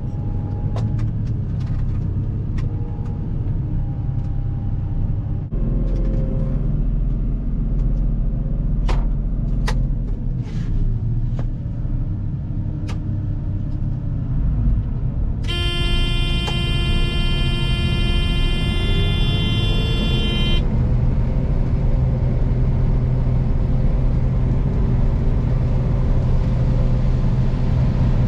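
Heavy vehicle engine running steadily with a deep rumble, with scattered clicks and a slow falling whine. About halfway through, a loud steady tone sounds for about five seconds, then the engine carries on.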